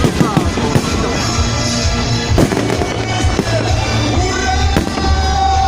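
A fireworks display going off, with a few sharp bangs and crackling bursts over loud music.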